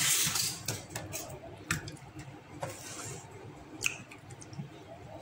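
Gloved hands moving yogurt-marinated chicken wings into a glass bowl: soft wet squelching and handling noises, with a couple of sharp clicks of pieces or fingers against the glass.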